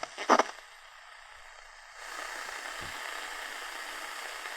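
Static hiss from a Realistic DX-350 portable radio tuned between medium-wave stations, with two short blips of signal in the first half-second as the dial moves. The hiss steps up about two seconds in and then holds steady.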